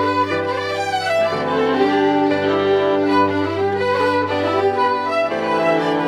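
Background music: a slow melody of held notes, changing about once a second, over a steady low bass note.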